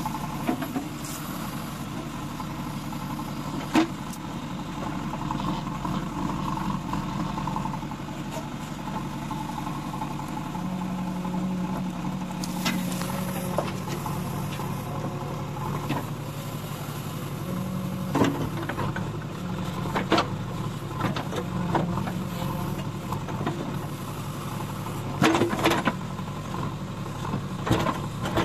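JCB 3DX backhoe loader's diesel engine running steadily while the backhoe digs soil, the engine note swelling now and then under hydraulic load. Sharp knocks come every few seconds, with a cluster near the end: the bucket striking and scraping soil.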